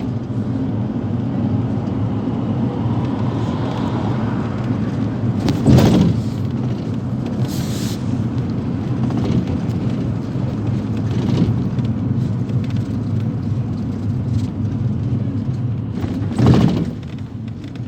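Steady engine and road rumble inside a Nizhegorodets-222709 minibus built on a Ford Transit, on the move. Two short louder thumps break through, about six seconds in and again near the end.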